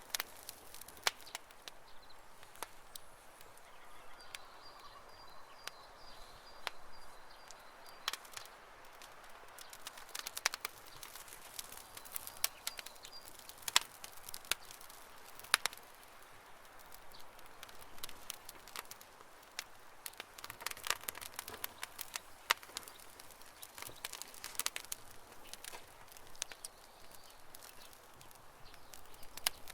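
Wood campfire crackling, with irregular sharp pops and snaps. A faint high trill sounds in the background twice, the longer one from about four to eight seconds in.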